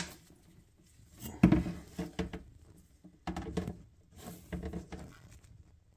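Short bursts of plastic knocking and rattling as the pieces of a removed PVC bathroom sink trap are handled over a plastic tub, about four in all, the loudest about a second and a half in.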